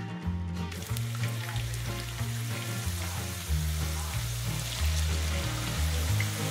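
Raw potato sticks sizzling in hot oil in a frying pan as they are dropped in. The sizzle comes up about a second in and then carries on steadily, with background music and a low bass line underneath.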